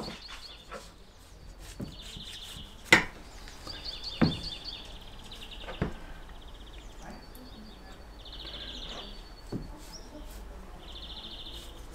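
Knife cutting and trimming raw beef on a wooden cutting board, with a few sharp taps of the blade against the board, the loudest about three and four seconds in. Small birds chirp and trill faintly in the background.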